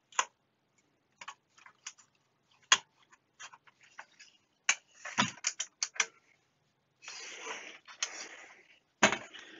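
Clicks and knocks from the plastic front panel and metal chassis of a Fluke 8810A bench multimeter being handled during disassembly, with a longer scraping rustle about seven seconds in.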